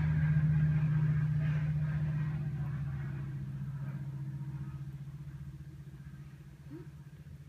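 Steady low motor or engine drone with a few overtones, fading away gradually over several seconds.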